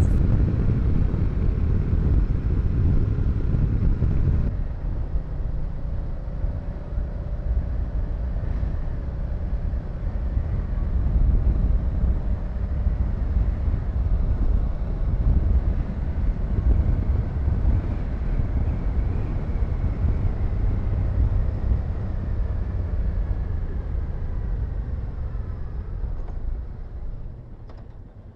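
Honda Deauville V-twin motorcycle riding along: a steady engine rumble mixed with rushing wind noise on the microphone. The sound dies down near the end as the bike eases off.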